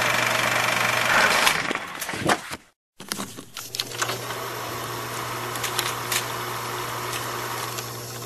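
Sound effects of an animated logo intro: a mechanical, engine-like running sound with scattered clicks. It breaks off into a brief silence nearly three seconds in, comes back as a steadier hum, and begins to fade near the end.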